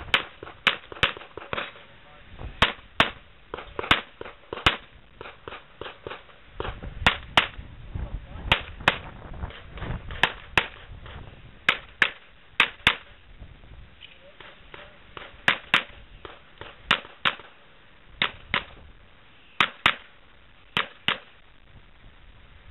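Gunshots from a practical-shooting drill: many rapid shots, mostly in quick pairs and short strings, with pauses of about a second between groups.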